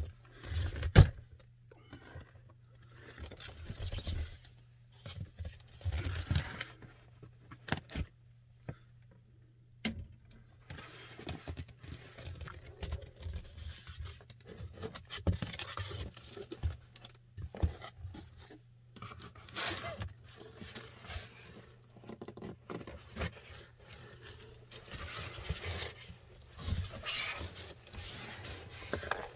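Irregular scraping, rustling and knocking of objects being handled and shifted around close to the microphone, with one sharp knock about a second in.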